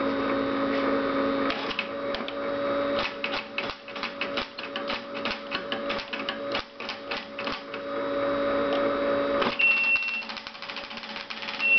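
Keys being typed on the keyboard of a Tracor AN/UGC-129 military airborne teletype: a quick run of clicking keystrokes over a steady hum, which stops with the clicks about nine and a half seconds in. A short high beep follows, and a second brief beep sounds near the end.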